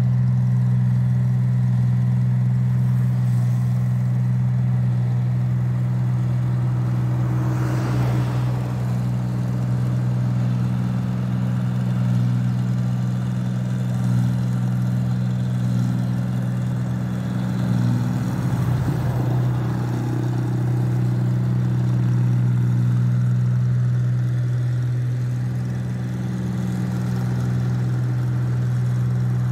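Rice combine harvester's engine running at a constant speed as it cuts through the paddy, a steady low hum that holds one pitch, with brief swells of rushing noise about eight and nineteen seconds in.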